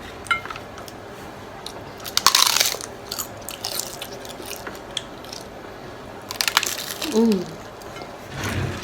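Crunchy bites into tacos, close up: a loud crunch about two seconds in and another near seven seconds, with softer chewing clicks between. A short hummed 'mm' follows the second crunch.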